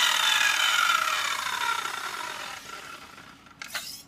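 Makita circular saw running with no load and coasting down after the trigger is released. The motor and blade whine slides steadily lower and fades away, on a test spin to check a newly fitted blade for wobble. Two short knocks come near the end.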